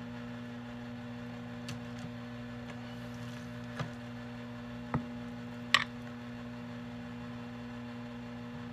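A steady electrical hum, with a few short clicks and taps as hands work a raw steak in a plastic bowl of marinade. The sharpest tap comes about six seconds in.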